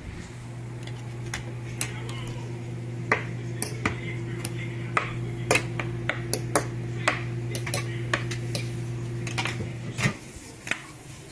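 Microwave oven running with a steady low hum, a baked potato cooking inside, with scattered sharp clicks and pops over it; the hum stops about ten seconds in with a short clunk.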